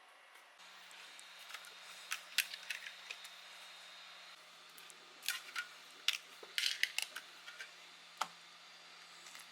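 Irregular clusters of sharp clicks and taps from hard plastic 3D-printed parts being handled and fitted together, over a faint steady hum.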